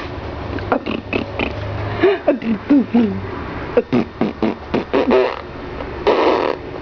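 A woman making silly mouth noises for a baby: a string of lip pops and clicks, short squeaky vocal swoops up and down, and about six seconds in a blown, sputtering raspberry-like noise.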